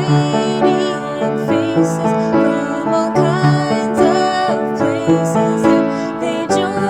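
A contemporary Christian song: a woman singing a sustained, wavering melody over instrumental accompaniment.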